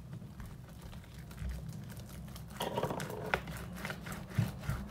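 Stiff, putty-like homemade slime being kneaded and pulled by hand, with small sticky clicks and crackles from about two and a half seconds in.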